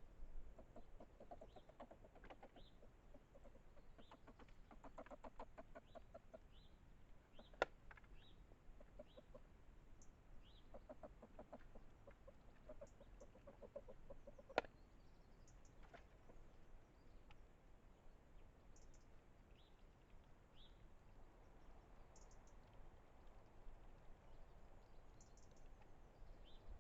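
Faint, rapid clucking calls in several short runs, with small high chirps scattered through and two sharp clicks, one about eight seconds in and one about fifteen.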